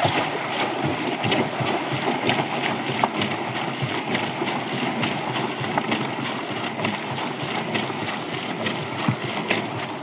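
Water splashing and streaming over the stainless-steel drum of a top-loading washing machine as the drum is turned by hand to rinse out gunk, with a steady rush and many small clicks and spatters. It starts and stops abruptly.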